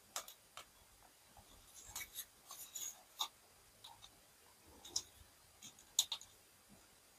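Scattered light clicks and rubbing of plastic and metal parts as an opened power bank's circuit board and battery pack are handled and pushed back into place, with the sharpest click about six seconds in.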